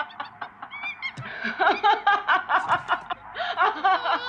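A woman laughing gleefully, in quick repeated 'ha' pulses. There is a short lull about half a second in, and the laughter starts up again about a second and a half in.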